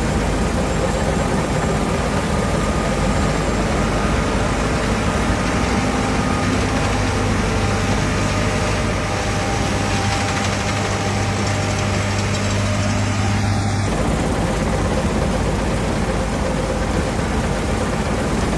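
John Deere S785i combine harvester running steadily while cutting, a continuous engine and machinery hum; a low tone in the hum drops away about two thirds of the way through.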